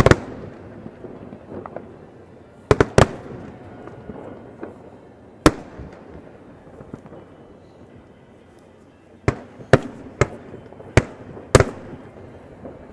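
Aerial fireworks shells bursting: about ten sharp bangs at uneven intervals, a close pair about three seconds in and a quick run of them in the last four seconds, over a low steady background.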